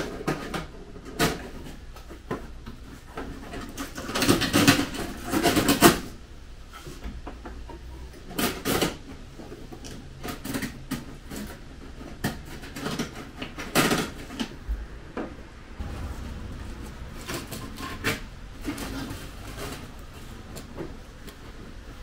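A long stainless steel brake line being handled and worked into place under the front of a car: irregular knocks, scrapes and clatter of metal, busiest about four to six seconds in, with single knocks after that.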